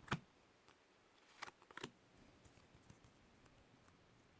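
Near silence broken by a few light clicks and snaps of baseball cards being handled: one sharp click at the start and a short cluster about one and a half to two seconds in.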